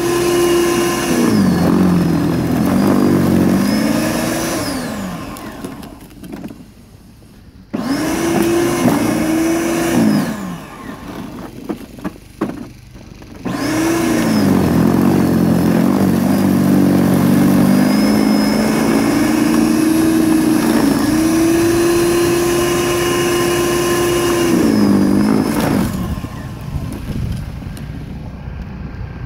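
Toro 1800 electric snow blower motor running with a whine that sags in pitch as the auger takes in snow and climbs back as the load eases. It is shut off and restarted twice, spinning down each time and starting abruptly, and winds down near the end.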